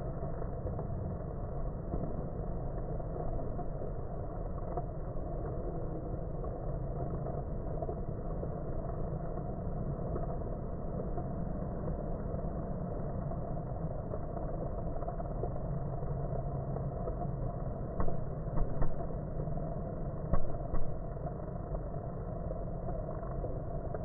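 Honeybees at a hive entrance making a steady low drone, heard through slow-motion audio. A few short knocks sound near the end.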